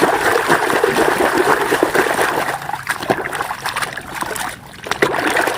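Running water trickling and splashing over a muddy toy vehicle as it is rinsed clean, with a brief lull a little after four seconds in.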